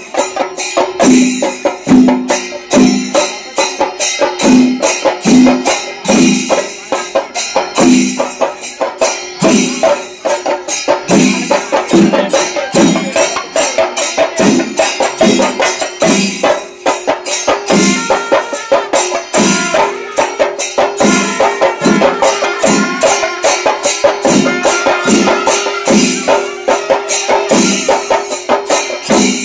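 Loud percussion music: a deep drum beat about once a second under dense fast strokes and jingling cymbals, over a steady held tone.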